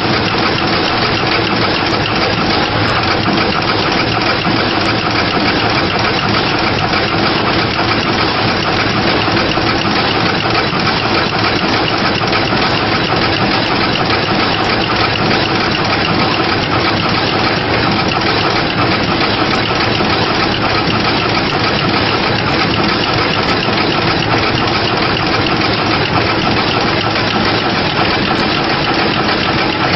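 PCB auto insertion machine running: a steady, dense mechanical noise with a low hum under it, unchanging throughout.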